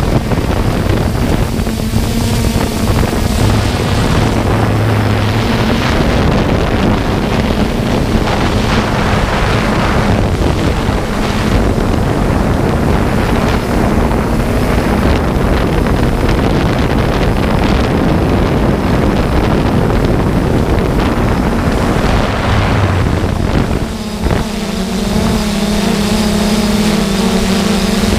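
3DR Solo quadcopter's electric motors and propellers humming steadily, heard from on board the drone and mixed with wind noise on the microphone. Near the end the hum turns steadier and clearer.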